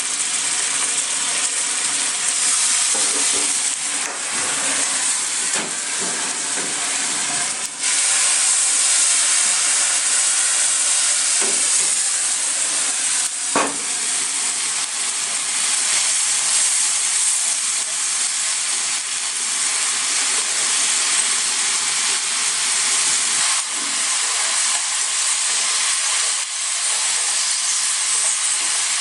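Chicken sizzling steadily in a frying pan, with a few short knocks and scrapes of a utensil against the pan.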